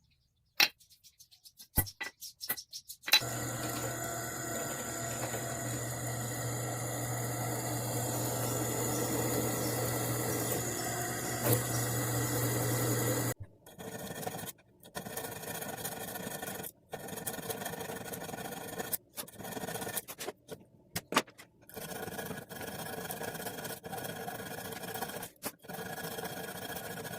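A few light taps, then a motor-driven shop tool running steadily with a low hum for about ten seconds while working the metal of a knife guard, followed by a string of shorter runs that start and stop abruptly.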